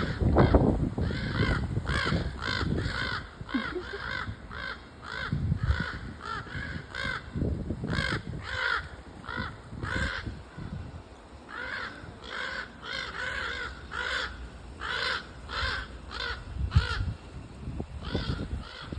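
A flock of crows cawing: many short, arched caws in quick, overlapping runs, thinning briefly around the middle, over a low rumble.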